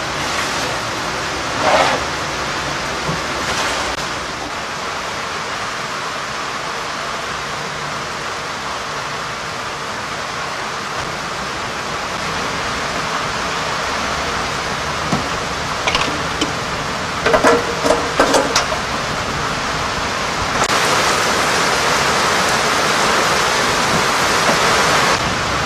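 Steady hiss of heavy rain falling on a river and a small boat, growing heavier about three-quarters of the way through. A few short sharp knocks sound in the middle.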